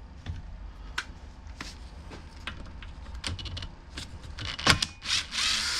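Small clicks and knocks of tools and trimmer parts being handled on the bench, with one sharper click past the middle and about a second of hissing near the end.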